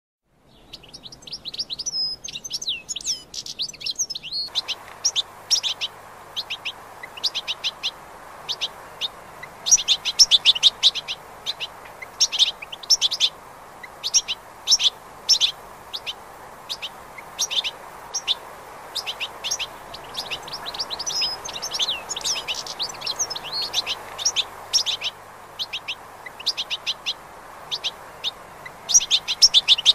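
European goldfinch singing: runs of rapid, short, high twittering notes with brief pauses between phrases. A steady background rush comes in about four seconds in.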